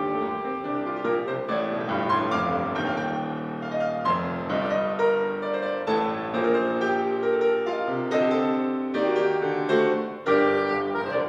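Soprano saxophone and Steinway grand piano playing classical chamber music together, a quickly changing run of notes.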